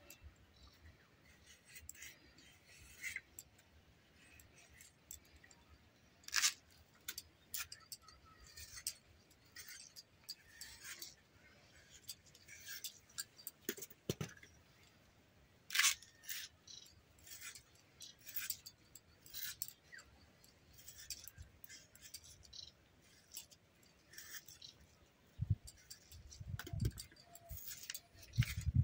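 Green vegetable stalks being peeled and cut on a bonti, a curved blade fixed upright in a wooden base: irregular crisp clicks and short scrapes as the blade strips the skin and slices through the stalks, with a few low thumps near the end.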